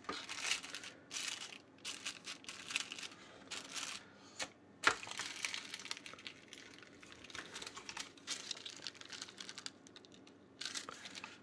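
Thin paper crinkling and rustling as it is handled in a hinged plastic Play-Doh coin-press mold, with small irregular plastic clicks and taps. A single sharp click about five seconds in, as the mold is shut.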